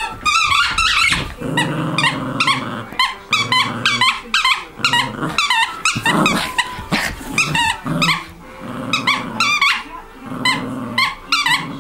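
Prague Ratter growling in short spells while chewing a squeaky plush toy, which squeaks over and over, several times a second.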